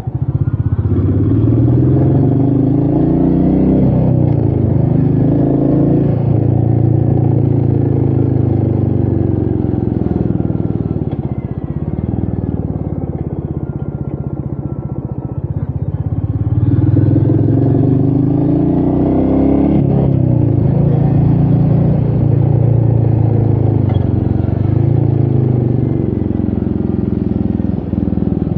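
Royal Enfield Meteor 350's single-cylinder engine, heard from the rider's position, pulling through the gears with its pitch rising and dropping at each shift. It eases off and falls in pitch around the middle, then accelerates again about two-thirds of the way in.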